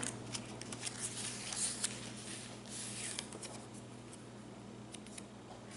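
Paper rustling and light clicks as the pages and paper inserts of a handmade junk journal are handled and turned, busiest in the first three seconds and thinning out after, over a faint steady electrical hum.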